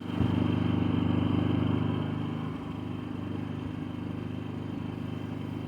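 An engine running steadily, a little louder for about the first two seconds, then easing slightly.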